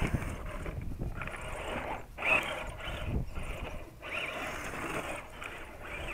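Electric motor and gear drivetrain of an RC scale crawler truck whirring in stop-start bursts of throttle, with short rising whines, as its tyres scrabble over dirt and grass.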